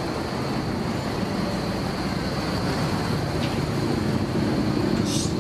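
Triumph Stag's 3.0-litre V8 running steadily as the car creeps past close by in slow town traffic, with general traffic noise around it.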